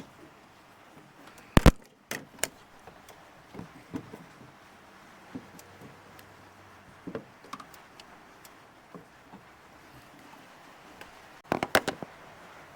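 Metal hand tools clinking and knocking against engine parts while undoing bolts: a sharp double knock about a second and a half in, a couple more soon after, scattered light taps, and a quick run of several clinks near the end.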